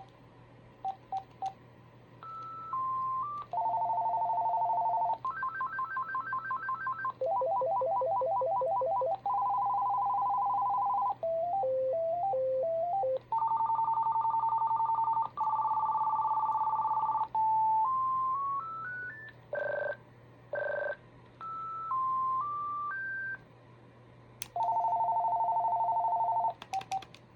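Vtech CS6219-2 cordless phone handset playing its ringtones one after another: about ten short electronic tunes, warbles and trills, each a second or two long, with brief pauses between them. A few short beeps come near the start.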